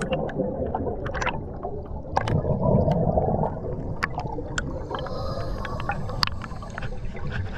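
Underwater rush and gurgle of scuba air bubbles streaming up past the microphone, with many scattered sharp clicks and pops.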